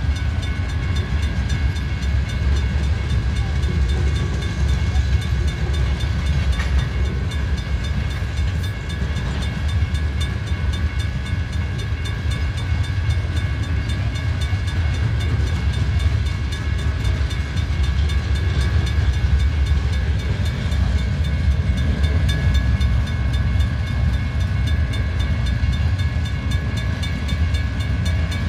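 Freight cars of a passing train rolling over the crossing with a steady, continuous rumble, the loudest sound. Above it a Federal Signal mechanical crossing bell rings steadily without a break, the sign that the crossing warning is active.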